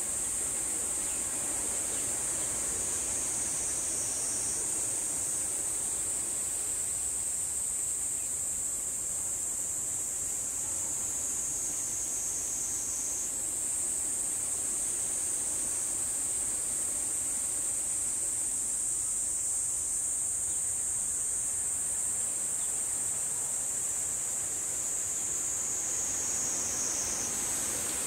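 Steady high-pitched insect song, a continuous buzzing drone, over a faint low hiss.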